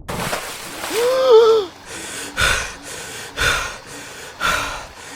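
A man gasping for air: a voiced gasp about a second in, then heavy breaths about once a second.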